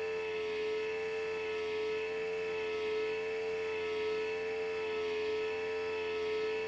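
Model railway turntable drive motor running as it rotates the bridge, giving a steady, unchanging whine with many overtones.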